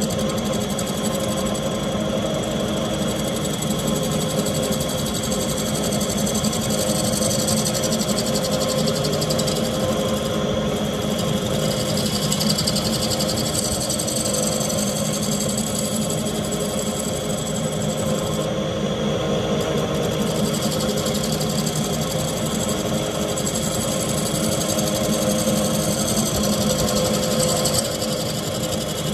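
Wood lathe running steadily while a bowl gouge cuts the bottom of a spinning Goncalo Alves bowl, peeling off continuous shavings.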